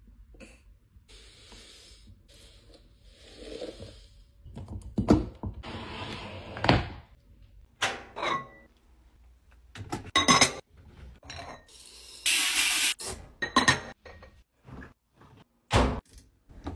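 Powdered OxiClean pouring into a glass jar with a soft, patchy hiss. Then comes a run of knocks, clicks and thunks, with brief scraping stretches, from the lid of a top-loading washing machine being handled.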